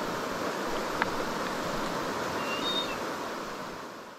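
Steady rush of a river's flowing water, with one sharp tick about a second in and a couple of brief high whistles about two and a half seconds in; the sound fades out at the end.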